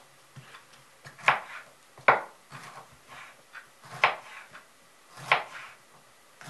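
Kitchen knife cutting a small cabbage head on a wooden cutting board: irregular chops, four of them sharp, with lighter cuts between.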